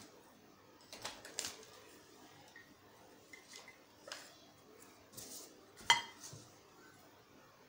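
Paintbrush being rinsed in a glass jar of water, the brush and hand knocking and clinking against the glass in several short clicks; the loudest clink, about six seconds in, rings briefly.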